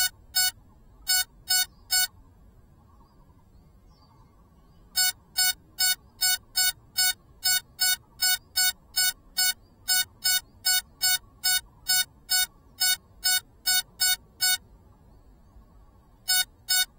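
A downed FPV drone's lost-model beeper sounding a string of short, high electronic beeps, a little over two a second. The beeps come in short runs with pauses of a few seconds between them, calling out the drone's position in the grass.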